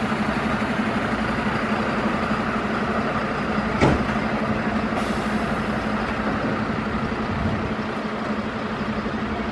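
Diesel engine of a turntable-ladder fire engine running steadily as the truck moves slowly past, with a constant low hum. A single sharp knock about four seconds in.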